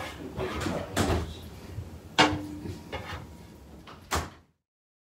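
A spatula scraping and knocking against an electric skillet's pan and a pot as cooked zucchini is cleared out: a few sharp knocks about a second apart, then the sound cuts off suddenly about four and a half seconds in.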